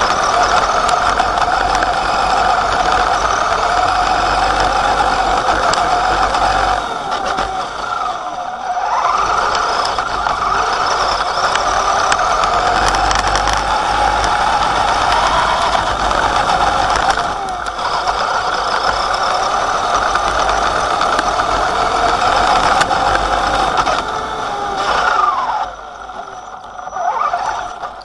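Axial Wraith RC truck's electric motor and two-speed gearbox, set in high gear, whining steadily at speed close to the onboard camera. The whine's pitch drops and climbs back as the truck slows and speeds up: about eight seconds in, again near seventeen seconds, and twice near the end.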